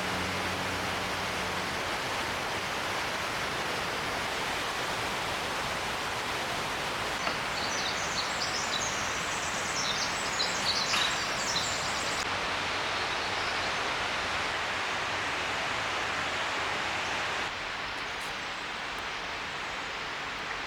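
Steady rush of a waterfall, with a brief cluster of high bird chirps in the middle.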